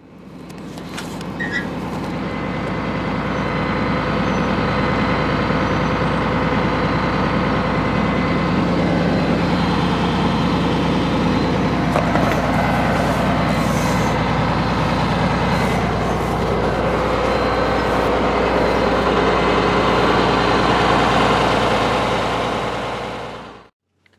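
A heavy engine running steadily, swelling up over the first few seconds and fading out near the end.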